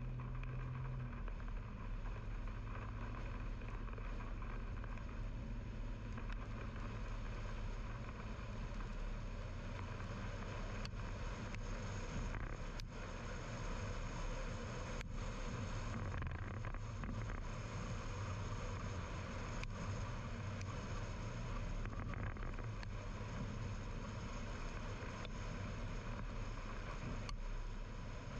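Steady road and engine noise of a car driving, heard from inside the cabin, with a few faint ticks.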